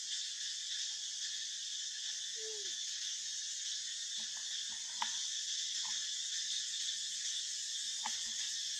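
A steady, high-pitched insect chorus drones without a break, with a few faint short clicks and taps in the middle and near the end.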